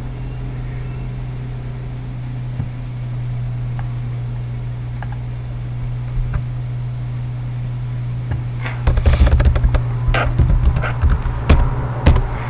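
Computer keyboard typing: a quick flurry of key clicks about nine seconds in, after a few scattered clicks, over a steady low hum.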